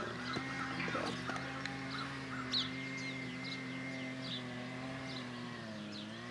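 Small birds chirping repeatedly over a steady low droning hum that dips briefly at the start and again near the end.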